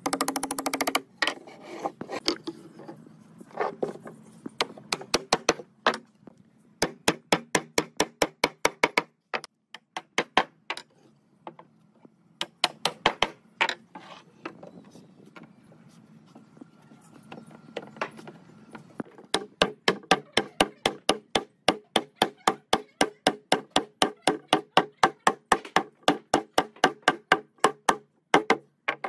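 A hammer striking wood again and again: a few scattered runs of blows, then a long steady run of about three strikes a second.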